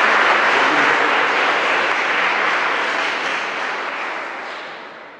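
Wedding guests applauding, a steady mass of clapping that fades away over the last couple of seconds.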